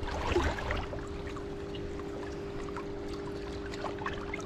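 Shallow water sloshing and splashing around hands holding a golden dorado under the surface for release, with a short burst of splashing in the first second. A steady low hum runs underneath.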